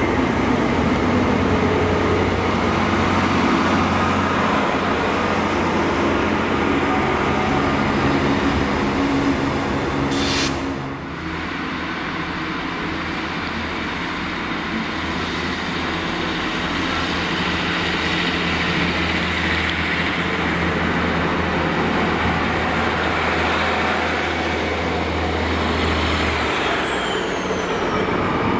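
Diesel multiple unit trains, class 153 among them, with their engines running at the platform: a steady low drone. About ten seconds in there is a brief sharp burst, after which it is a little quieter, and near the end a falling high-pitched whine as a unit draws in close.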